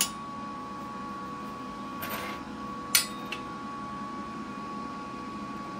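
Steady shop hum with a sharp metallic click at the start, a brief scrape about two seconds in and another click a second later, as freshly welded steel parts are handled.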